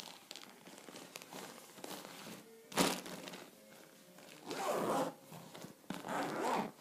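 A zipper on a fabric carry case being pulled in a few rasping strokes, with rustling of the fabric as it is handled. A single sharp knock about three seconds in is the loudest sound.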